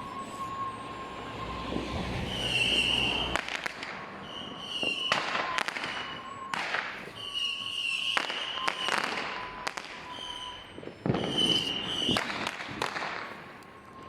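Fireworks going off: about half a dozen bangs a second or two apart, some trailing into crackle, with short high whistling tones between them.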